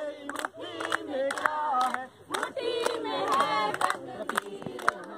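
A group of men and women shouting a chant together, with many hands clapping.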